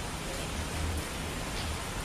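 Steady hiss of falling water, with an uneven low rumble underneath.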